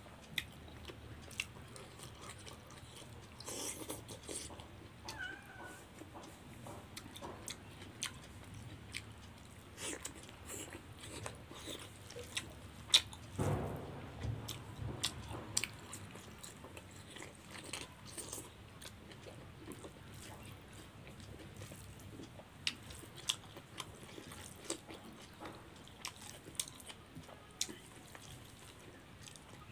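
Close-miked chewing, biting and lip-smacking of a person eating rice, fried pork, chicken curry and green beans by hand, with many small clicks scattered throughout and a louder knock about 13 seconds in.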